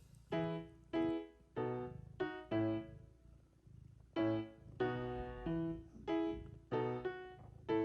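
Background music: a light melody of short struck notes that each fade quickly, coming in an uneven, bouncy rhythm about every half second.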